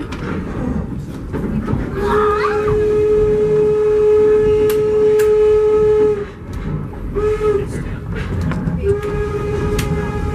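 Steam locomotive's whistle blowing at one steady pitch: a long blast of about four seconds, a short toot, then another long blast. This is the long–short–long close of a grade-crossing signal. Heard from inside a wooden passenger coach, over the steady rumble and clatter of the wheels on the rails.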